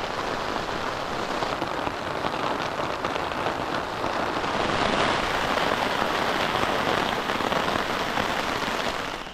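Steady heavy rain pattering on a tarp shelter overhead, a dense even hiss that grows a little louder about halfway through.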